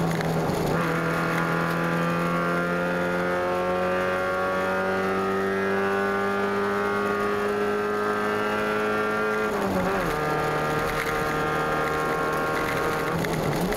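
Race car engine under hard acceleration, heard from inside the cockpit. The pitch climbs slowly as the car pulls through a gear, then drops sharply about ten seconds in at a gear change or lift, and holds steady again.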